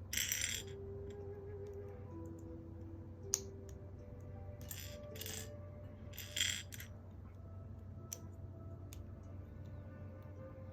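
Plastic LEGO bricks rattling and clinking in three short bursts, with a few single sharp clicks between them, over quiet background music.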